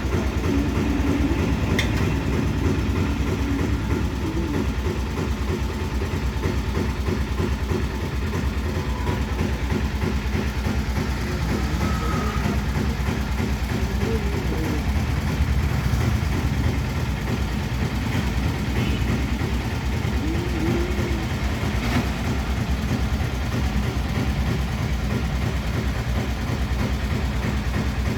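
Steady, heavy low rumble with no clear beat, like a running train or engine, played back through a 5.1 home amplifier's speakers.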